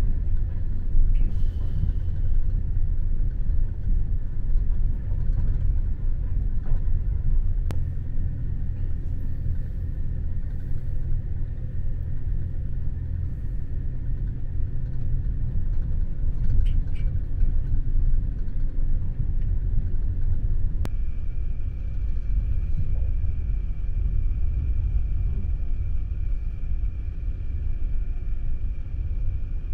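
Steady low rumble of a sleeper train's carriage running along the track at speed, heard from inside the compartment. A faint, steady high whine joins about two-thirds of the way through, and a few faint clicks are heard.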